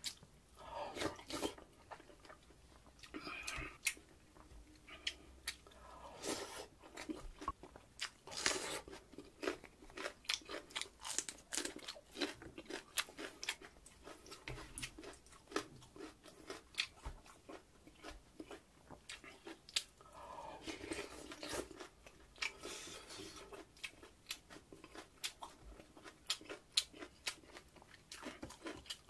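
Close-miked eating of rice in spicy pork-bone soup: wet chewing and smacking of the mouth, with many short sharp clicks from a spoon against the earthenware pot.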